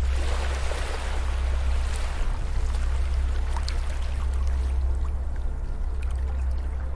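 Ocean waves washing onto a beach: a surge of surf hiss at the start that slowly dies away over a few seconds, over a steady low hum.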